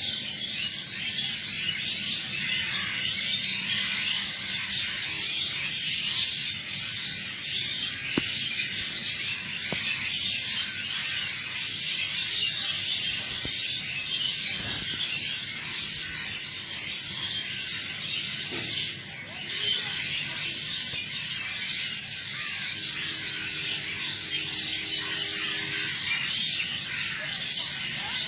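Many birds chirping together in a dense, continuous dawn chorus.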